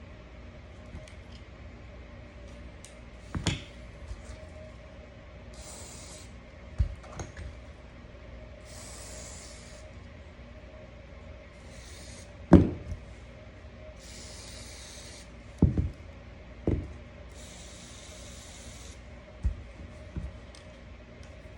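A spray can hissing in five short bursts of about a second each, between sharp knocks of pistol parts being handled and set down on a hard surface; the loudest knock comes about halfway through. A faint steady hum sits underneath.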